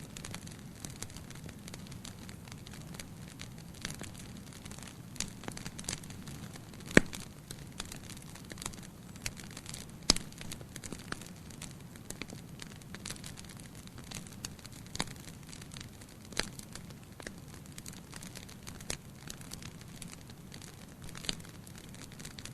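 Campfire crackling: irregular sharp pops and snaps of burning wood over a low steady rush, with two louder pops about seven and ten seconds in.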